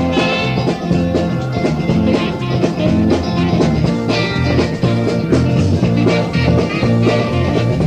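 Dance band playing a Charleston, with drums, bass guitar, keyboards, saxophone and electric guitar over a steady beat.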